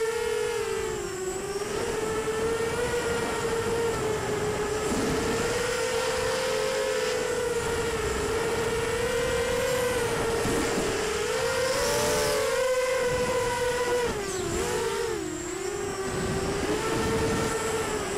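Brushless motors and 5-inch props of a 250-size racing quadcopter (Cobra 2204 2300Kv motors on 4S) whining, as heard from its onboard camera. The pitch wavers up and down with throttle, with a noticeable dip and wobble about 14 seconds in, over a rushing noise.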